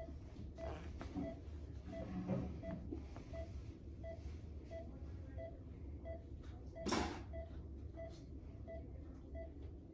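Patient monitor beeping with each heartbeat, short even beeps about 1.4 a second (a pulse near 85 a minute), over a low steady hum. A brief rustle about seven seconds in.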